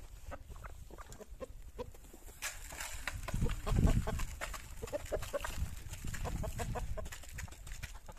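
Hens clucking with many short, repeated clucks as they crowd around a plastic-bottle feeder, with light pecking and scratching clicks. About two and a half seconds in there is a burst of rustling as feed is poured from a plastic bag into the feeder.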